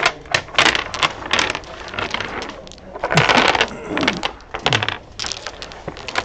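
Dominoes being shuffled face down by hand on a wooden table: a dense clatter of tiles clicking and sliding against one another, loudest about halfway through.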